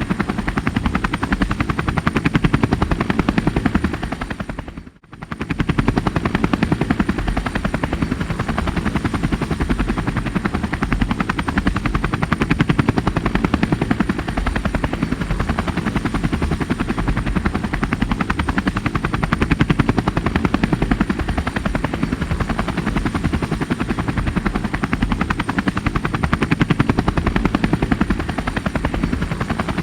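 Helicopter running steadily, its rotor chop a fast, even pulsing, with a brief dip almost to silence about five seconds in before it comes straight back.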